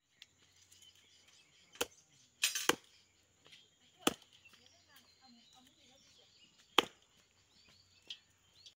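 Large knife chopping raw poultry on a wooden stump chopping block: about seven sharp chops at uneven intervals, with a quick double chop about two and a half seconds in.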